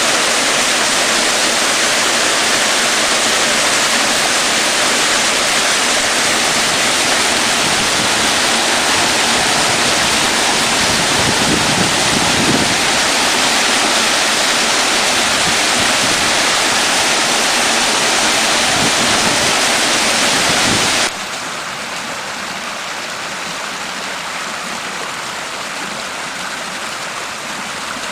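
Heavy thunderstorm rain pouring down steadily as a dense hiss of water. About three-quarters of the way through it drops suddenly to a quieter, steady level.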